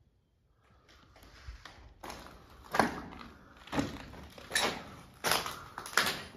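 Footsteps on a hard floor in an echoing concrete room, starting after a near-silent pause of about two seconds and settling into a regular walking pace of roughly one step every three quarters of a second.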